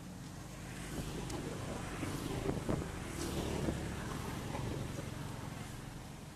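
Engine noise of a passing motor vehicle, swelling to its loudest in the middle and then fading away.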